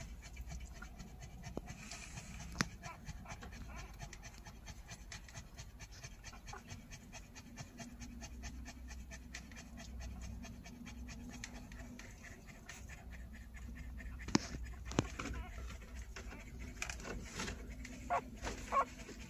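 Nursing mother dog panting rapidly and steadily through her open mouth. A few sharp clicks come in the middle, and short squeaks near the end.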